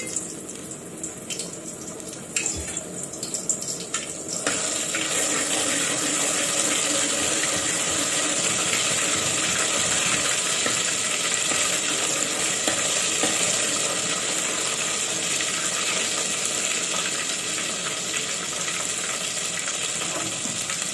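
Ginger-garlic paste frying in hot oil in an aluminium pot, stirred with a metal spatula. A few clinks of the utensil against the pot over a lighter sizzle, then about four seconds in the sizzle rises to a steady, even hiss.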